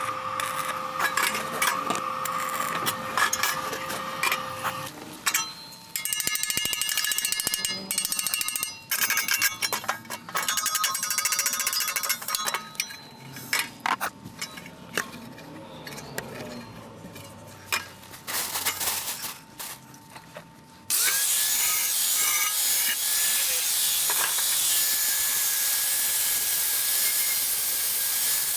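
Handheld power tool working steel, run in short stop-start bursts and then running steadily with a whine for the last third.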